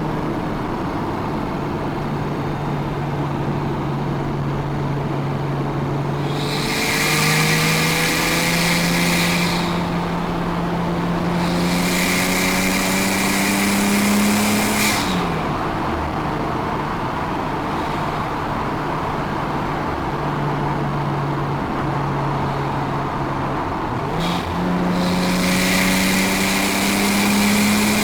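Nissan Skyline R34 GT-T's turbocharged straight-six with a full exhaust, cruising steadily at first and then pulling under throttle in stretches, the engine note climbing while a high turbo whistle rises over it. The note drops suddenly about halfway through as the throttle is lifted. Near the end there is a brief dip, like a gear change, and then it pulls and whistles again.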